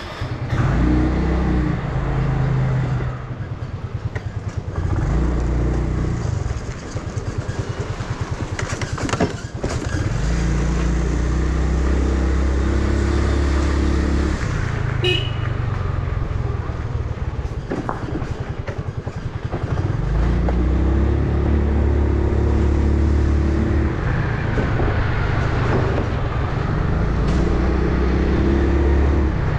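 2008 Yamaha R6 inline-four sport bike with an Akrapovic megaphone exhaust, ridden in city traffic. The engine pulls up through the revs several times, with steady cruising stretches at constant revs in between.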